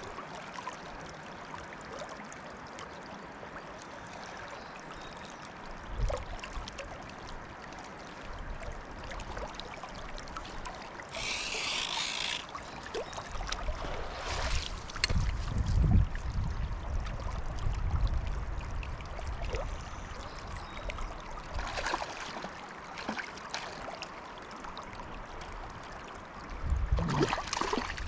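Fast river water rushing steadily, with wind buffeting the microphone in low rumbles at times and a brief hiss about eleven seconds in.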